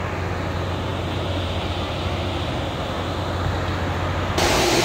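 Steady low machinery hum under a broad, even outdoor noise. About four seconds in, the sound cuts abruptly to a louder, brighter noise.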